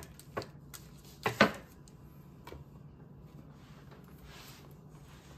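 Table knife spreading mayonnaise on a slice of white bread: a few sharp clicks and knocks of the knife and jar, the loudest pair about a second and a half in, with soft scraping near the end.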